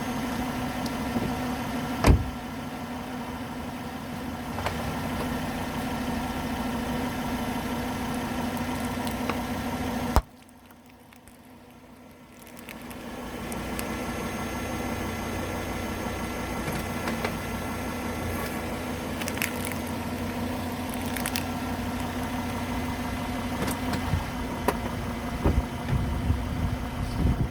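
Car engine running steadily at low speed, with a single sharp crack about two seconds in and scattered crackles near the end as objects are crushed under the tyres. The engine sound drops out briefly around ten seconds and then comes back.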